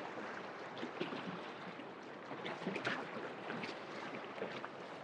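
River water rushing past and lapping against rocks: a steady, quiet wash with many small irregular splashes.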